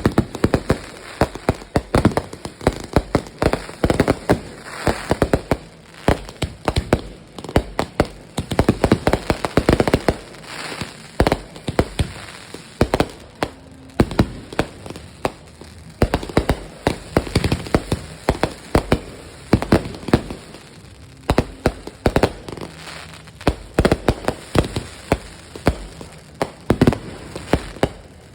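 Fireworks going off in a rapid, irregular string of sharp cracks and pops, several a second, with no let-up.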